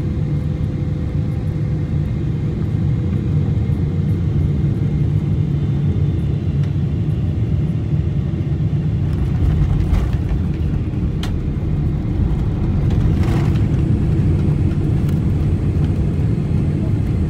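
Airliner cabin noise through touchdown and the runway roll: the jet engines and rushing air make a loud, steady low rumble, with a few brief knocks about ten to thirteen seconds in.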